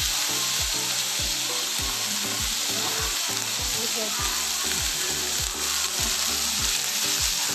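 Steak and butter sizzling on a hot cast-iron sizzle plate, a steady hiss: the meat is still cooking on the iron. Music with a steady thudding beat plays underneath.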